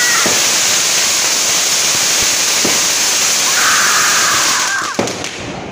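Ground fountain firework (flower pot) spraying sparks with a loud, steady hiss and a few faint crackles, dying down about five seconds in.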